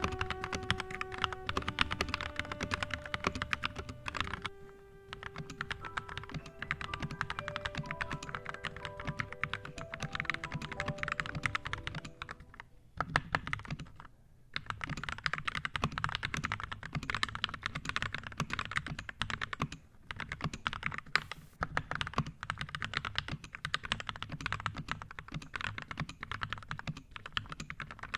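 Continuous fast typing on a 65% mechanical keyboard with JWICK Red linear switches, a dense run of key clacks. Music with held notes plays along for the first twelve seconds or so, then drops out, and after a brief pause the typing goes on alone.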